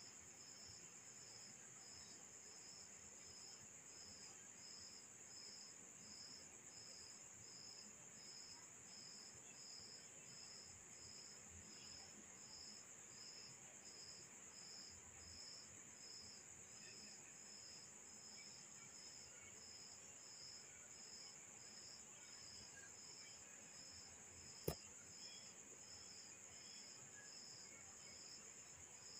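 Near silence with crickets chirping faintly: a steady high trill and a slower, regular chirp about one and a half times a second. There is a single sharp click near the end.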